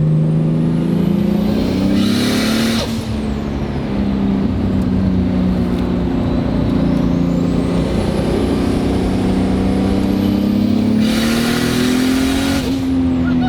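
Turbocharged Toyota 2JZ straight-six in a Nissan 240SX accelerating hard through the gears: the engine pitch climbs, falls at a shift about three seconds in, climbs again for several seconds and falls at another shift near the end. A loud rushing hiss comes just before each shift.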